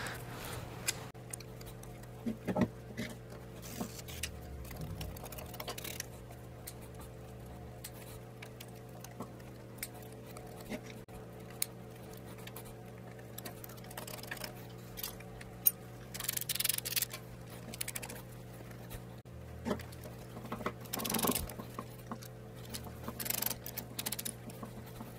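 Hand tools working on a corroded steel aircraft engine mount: scattered metallic clicks and a few short scrapes as pliers and a pick work out the lock wire and a wrench turns the fasteners. A steady low hum runs underneath.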